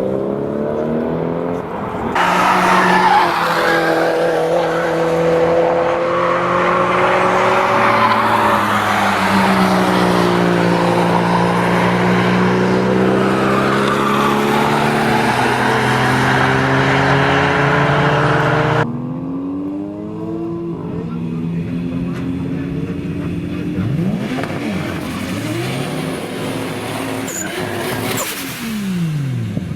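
Toyota Supra 2JZ straight-six engine held at high revs while the tyres squeal for about seventeen seconds, as in a burnout or drift. The tyre noise then stops suddenly and the engine drops to quieter running with several quick rev blips rising and falling.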